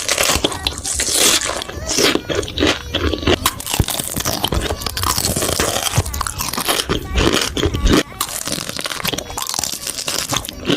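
Close-miked eating: repeated crunching bites and chewing of crunchy food, many sharp irregular crunches one after another.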